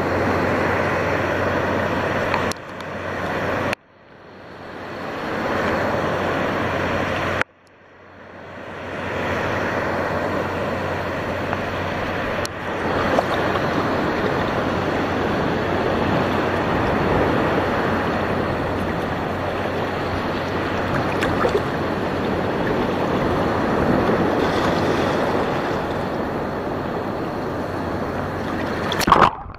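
Steady rush of sea water and wind buffeting the microphone, as heard from a boat on open ocean. The sound drops out suddenly twice, about four and seven and a half seconds in, each time swelling back up.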